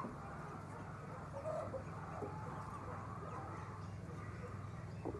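Flock of chickens in a poultry house, with a few short calls over the flock's steady background noise and a constant low hum.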